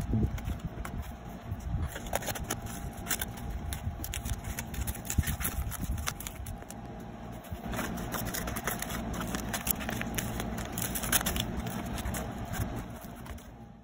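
Brown kraft-paper mailers being cut open with scissors and torn apart by hand: a steady crackling and rustling of stiff paper with many short snips and scrapes.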